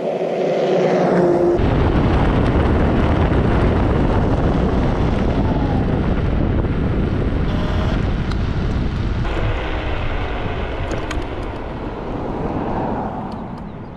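Wind buffeting the microphone, together with tyre and road rumble, on a camera mounted on an electric scooter riding at speed. The rumble starts abruptly about one and a half seconds in and eases off near the end. Before it, a steady whine is heard briefly.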